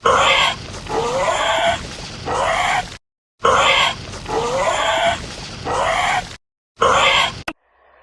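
Triceratops sound effect: an animal call with rising pitch sweeps, played twice as the same three-second stretch, then a short piece of it near the end.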